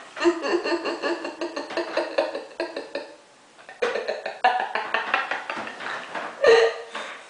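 Music with a quick run of percussive strikes, breaking off about three seconds in and starting again a moment later.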